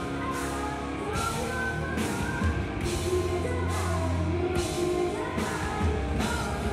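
Live rock band playing a song: drum kit with repeated cymbal crashes, electric guitar and a heavy bass line under a woman's singing voice.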